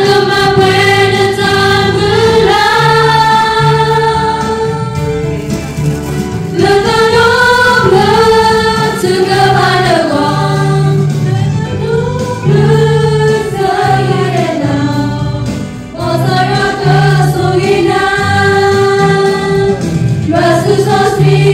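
A group of voices singing a Christian song with long held notes, over a bass line that changes note every second or so.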